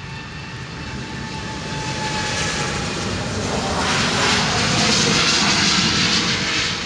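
Boeing 787 Dreamliner's twin jet engines at takeoff power on the takeoff roll, a whine and rushing jet noise that grows steadily louder as the airliner speeds past, loudest about four to six seconds in, then begins to fade.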